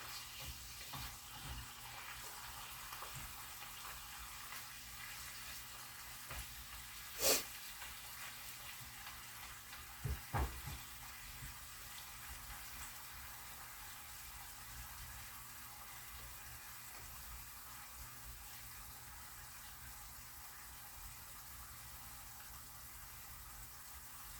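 Faint steady sizzle of cut-up chicken frying in a pan, with its released liquid still cooking off. A sharp click about 7 seconds in and two low knocks around 10 seconds.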